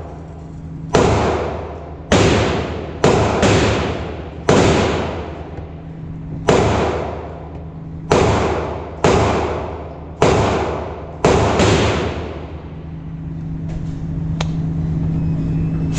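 Gunshots inside an indoor shooting range: about eleven irregularly spaced shots over the first twelve seconds, each ringing out with a long echo. A steady low hum runs underneath.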